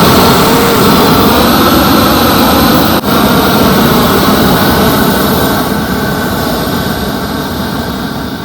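Propane weed torch burner with its valve opened all the way up: a loud, steady, jet-like rush of the flame. There is a brief dip about three seconds in, and it slowly gets quieter over the last few seconds.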